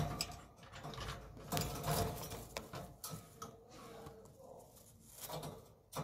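Irregular rattling and clattering at a wire pigeon cage, in uneven bursts, loudest a little after the start and again near the end.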